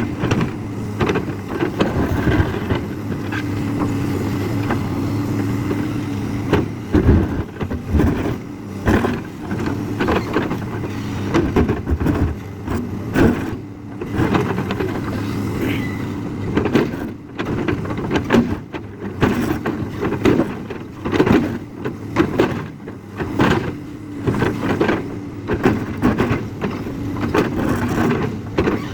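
JCB excavator's diesel engine running, its loudness rising and falling as it works, with frequent sharp knocks and rattles throughout.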